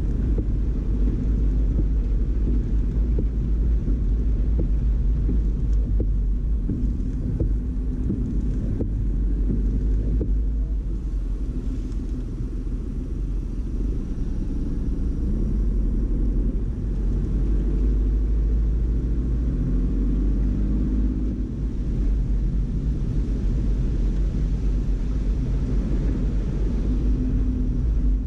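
A car driving along a flooded road, heard from inside the cabin: a steady low rumble of engine and tyres on the wet road, with the engine note drifting up and down.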